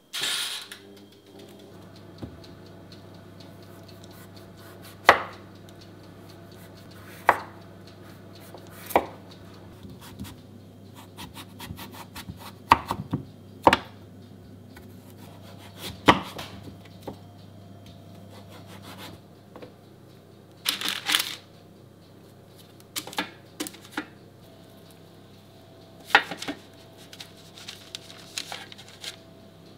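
Chef's knife cutting through raw butternut squash onto a wooden cutting board: separate sharp knocks every second or few seconds, some in quick pairs, with rubbing and scraping between them. It opens with a click as the oven dial is turned.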